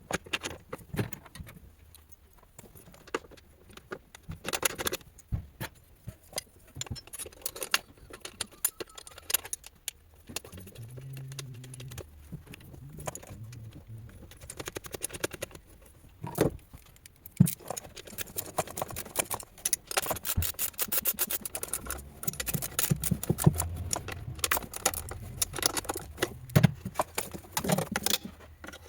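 Metal parts or hand tools being handled, clinking and rattling with scattered knocks, and runs of rapid clicking about two thirds of the way in and near the end.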